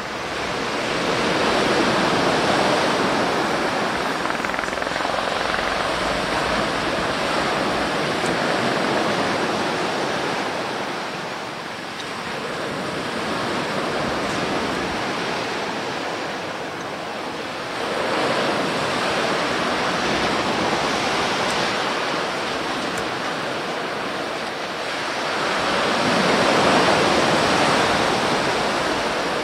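Sea waves rushing and breaking, a steady wash of surf that swells louder and fades back in slow surges every several seconds.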